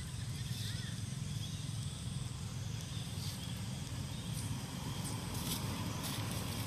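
Outdoor ambience: a steady low rumble with faint scattered clicks and rustles.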